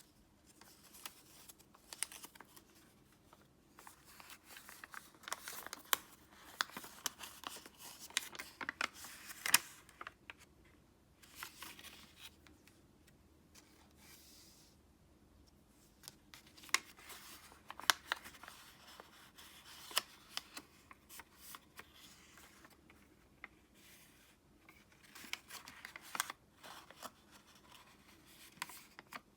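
Origami paper being folded and creased by hand: irregular bursts of crinkling, scraping and sharp little clicks, with quiet pauses between them.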